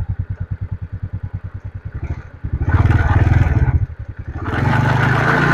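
TVS Ntorq 125 scooter's single-cylinder engine idling with even pulses, revved briefly about two and a half seconds in, dropping back to idle, then revved again and held near the end. It has just been reassembled to cure an engine noise, and a rattle that comes with it is put down by the mechanic to a loose silencer.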